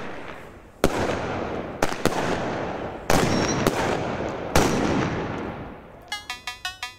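Ugly Joe nitrate salute cake firing: four loud single bangs about one to one and a half seconds apart, each followed by a long rolling echo that dies away. Near the end, rhythmic electronic music starts.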